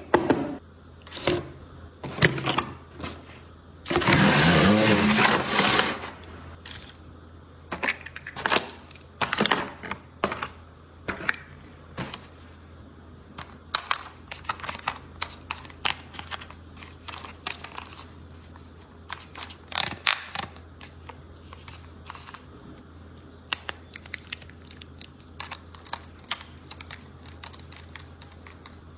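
Close handling of a toy and its plastic packaging: irregular clicks, taps and scrapes, with a louder rustling stretch of about two seconds near the start.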